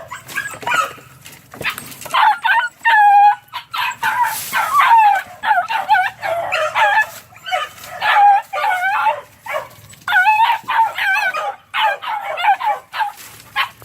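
Several three-month-old puppies yipping and barking in quick, high-pitched, overlapping cries, close together from about two seconds in, as they run after a rabbit.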